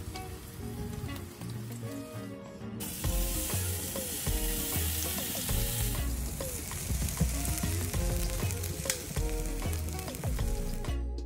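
Rack of lamb sizzling on a charcoal grill, with background music. The sizzle jumps up sharply about three seconds in and stays loud until near the end.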